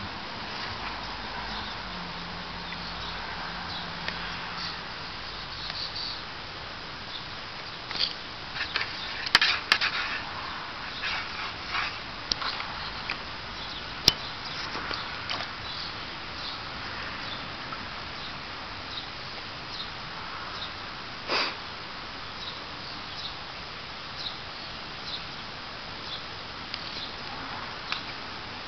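Scattered light splashes and taps as a Savannah cat's paws step through shallow water in a plastic kiddie pool, over a steady background hiss. The splashes cluster in the middle, with one louder splash about two-thirds of the way through.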